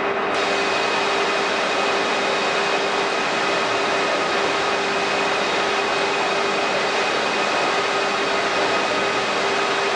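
Tea-processing machinery running steadily: conveyor belts and leaf-crushing and drying machines making an even mechanical din with a steady hum through it.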